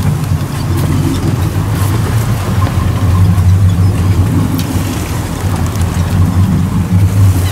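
Motorboat engine running at idle as a steady low rumble, mixed with wind buffeting the microphone.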